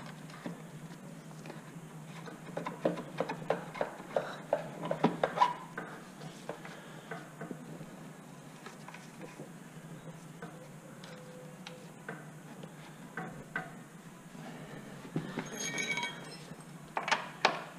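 Hand tools and metal fork parts clicking and clinking as a motorcycle front fork leg is refitted and tightened: a run of sharp clicks, about four a second, then a few metallic clinks with a brief ring near the end.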